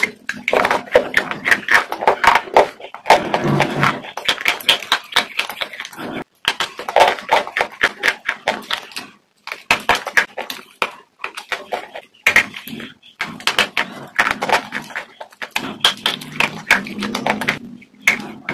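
Close-miked biting and chewing of a hard white crunchy food: dense runs of crackling crunches, broken by a few short pauses.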